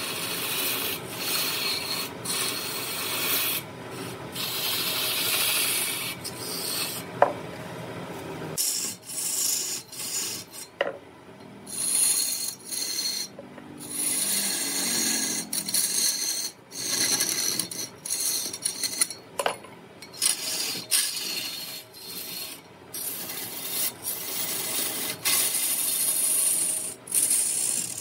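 Scraping or rasping on wood in repeated, uneven strokes with short pauses between them.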